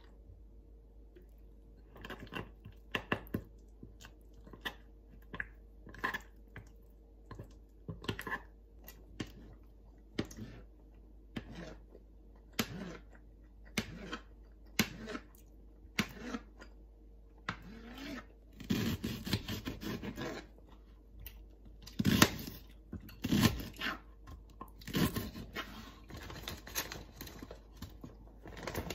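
Kitchen food prep: a knife knocking on a plastic cutting board in separate taps while cutting tofu, and plastic food packaging crinkling and being torn open in the second half.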